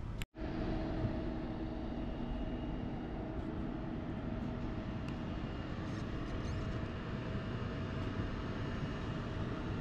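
Steady airport apron noise from jet aircraft: an even rumbling hiss with a faint, unchanging whine, cut off for a moment just after the start.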